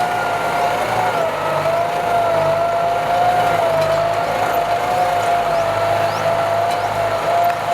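Kubota M9540 tractor's diesel engine running steadily under ploughing load, with a steady high whine over a low engine hum.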